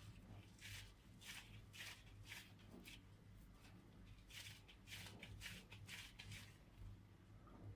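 Wet hands rolling and patting minced meat into a ball: faint soft, moist pats about two a second, pausing briefly midway, over a low steady hum.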